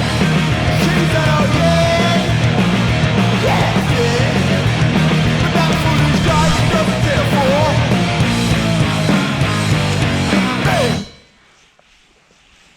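Loud rock music with a singing voice, cutting off abruptly about eleven seconds in and leaving only a faint background hiss.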